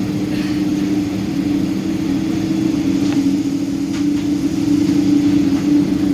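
Boeing 777-200's jet engines heard inside the passenger cabin: a steady drone with two low steady tones, growing slightly louder.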